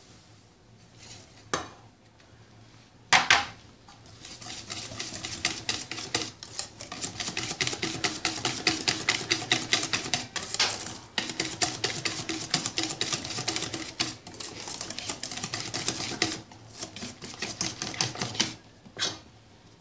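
Wire whisk beating semolina into egg batter in a stainless steel bowl, its wires clicking against the metal in rapid strokes with a few short breaks. Two sharp knocks come first, about a second and a half and three seconds in.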